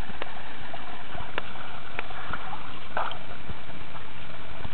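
Steady rush of splashing pond water, with a few short clicks.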